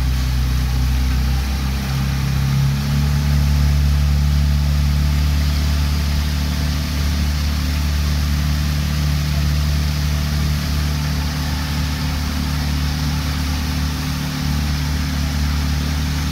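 Outboard motor of a coach's launch running steadily at cruising speed, its pitch shifting slightly about two to three seconds in, over a steady hiss of water and wind.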